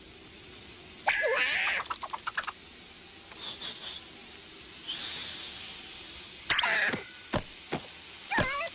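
Cartoon lizard character's squeaky, wordless vocal noises mixed with comic sound effects. There is a high hiss around the middle, a loud sudden burst about two-thirds through, then two quick rising chirps.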